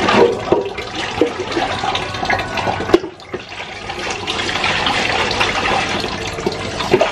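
Water scooped with a plastic dipper and poured out over dishes, splashing, with a few light knocks in the first half and a steadier pour in the second half.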